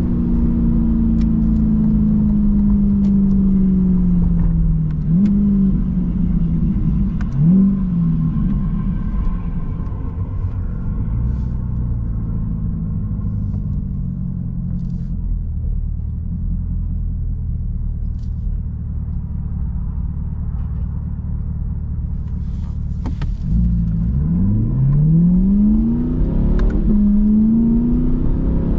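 Corvette C8's mid-engine V8 under way. Its note falls as the car slows over the first few seconds and rises briefly twice around five and seven seconds in. It then runs low and steady through the middle, and near the end it climbs, dips and climbs again as the car accelerates through an upshift.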